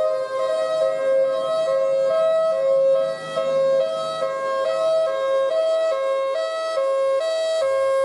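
Two-tone hi-lo siren, like an ambulance's, steadily alternating between two pitches a little over twice a second.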